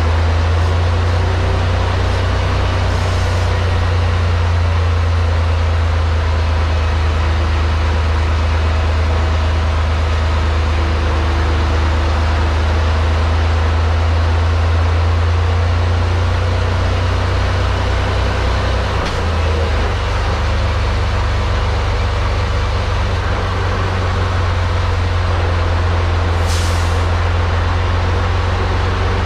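Semi truck tractor driving without a trailer: a loud, steady low diesel drone with road rumble, whose low note changes about two-thirds of the way through. Near the end comes a short hiss of compressed air from the truck's air system.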